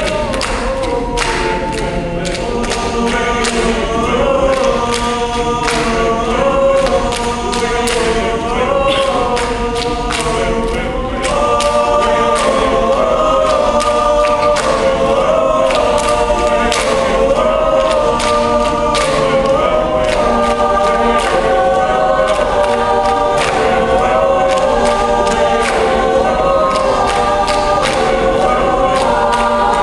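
Mixed choir singing a cappella to its own African-style hand-clapping patterns, the claps sounding as steady sharp strokes under the voices. The singing grows louder about 11 seconds in.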